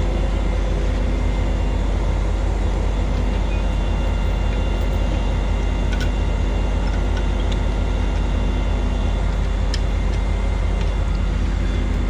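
Skid steer's diesel engine running steadily with a deep, even drone.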